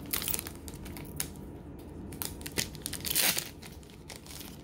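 Foil wrapper of a Japanese Pokémon TCG Double Blaze booster pack crinkling as it is handled, with scattered crackles. It is then ripped open in one longer tear about three seconds in.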